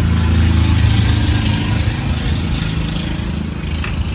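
A machine motor running with a steady low hum, with a brief hiss about a second in.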